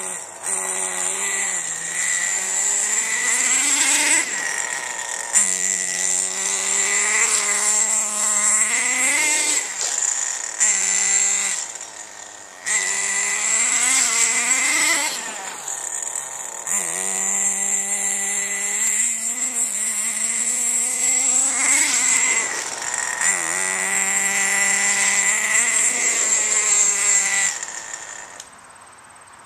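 Radio-controlled car's motor running hard, its pitch rising and falling again and again as it accelerates and slows. It fades away sharply near the end as the car drives off.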